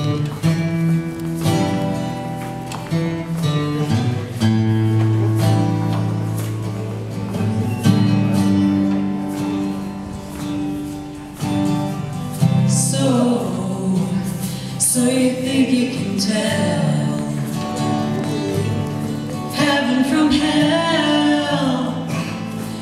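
Live band music led by a strummed acoustic guitar, playing an instrumental passage; singing comes in about halfway through.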